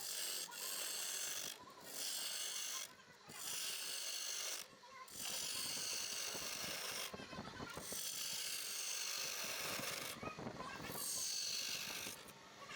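Turning tool scraping and cutting wood on a lathe: a hissing scrape that comes in passes of one to three seconds, with brief breaks between them.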